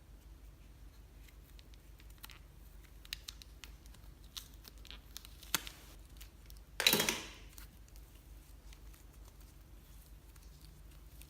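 Clear slime being worked by hand, with scattered small clicks and pops. One louder burst comes about seven seconds in.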